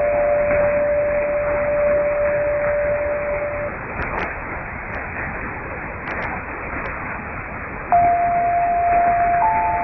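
Danmarks Radio's longwave interval signal on 243 kHz, heard through an AM receiver: pure electronic tones step down to one long held note, then stop. About four seconds of hiss and a few static clicks follow, and the tones start again near the end.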